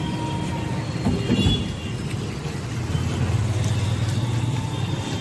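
Low, steady rumble of a vehicle engine running in street traffic, growing stronger in the second half, with a single knock about a second in.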